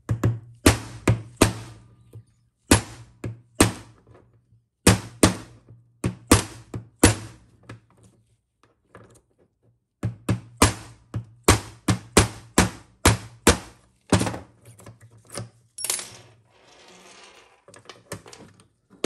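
Hammer striking a 1/8-inch roll pin punch, metal on metal, to drive the roll pin out of a TH350 transmission governor's gear shaft. The blows come in quick bursts of several sharp taps with short pauses, each with a brief metallic ring. A short rustle of the parts being handled comes near the end.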